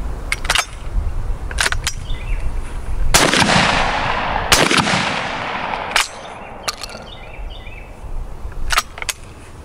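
Two 12-gauge shotgun shots from a Darne-type sliding-breech side-by-side, about a second and a half apart, each with a long echoing tail. Sharp metallic clicks of the gun's action come before the shots and again after them, as the sliding breech is worked open.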